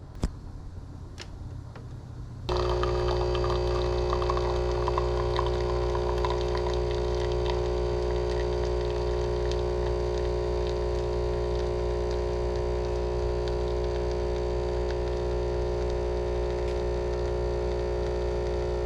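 A couple of faint clicks, then about two and a half seconds in a steady machine hum starts suddenly and holds unchanged, with several held tones and a deep low rumble.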